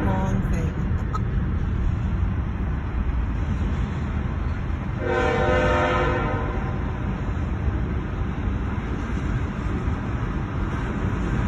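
A CSX freight locomotive's horn sounds one blast of about a second, around five seconds in, after a first blast fades out at the very start. Underneath, the passing freight train makes a steady low rumble, heard from inside a car.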